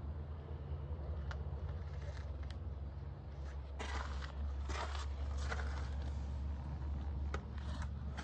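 Wheel loader's diesel engine idling with a steady low hum, with scattered scrapes and rustles that grow busier about four seconds in.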